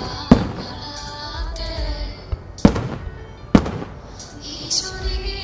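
Aerial firework shells bursting: three sharp bangs, one just after the start and two more close together around three seconds in, over music playing along with the display.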